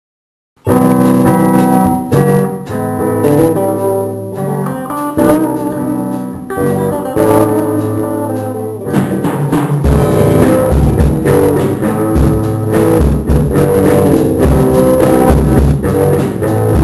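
A band rehearsing the instrumental opening of a song: guitar chords start under a second in, and a drum kit with bass comes in about halfway through, filling out the beat.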